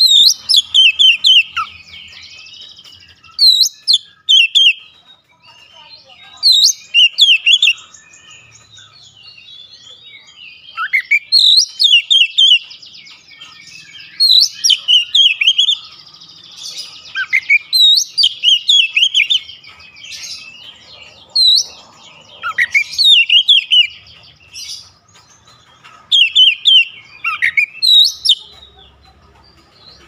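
Oriental magpie-robin singing loudly in repeated bursts of quick, sharp whistled notes with sweeping slurs, a few seconds apart, with short pauses between.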